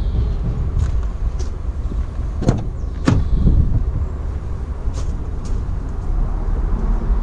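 Mercedes Sprinter van's cab door being unlatched and swung open: a handful of clicks and knocks, the two sharpest about two and a half and three seconds in, over a steady low rumble.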